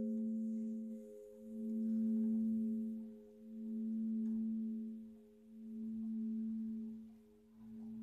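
Lingering hum of a large church bell after a single strike, dying away slowly. It has one strong low tone with higher tones above it, and its loudness swells and dips in a slow beat about every two seconds.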